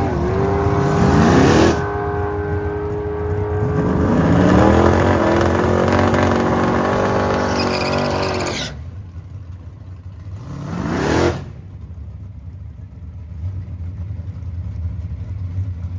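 Drag racing car engines revving hard and accelerating, their pitch climbing in several sweeps that each cut off suddenly. After that comes a lower, steadier engine rumble, typical of idling.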